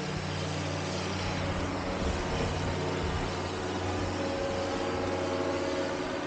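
Steady low engine hum under a broad, even hiss.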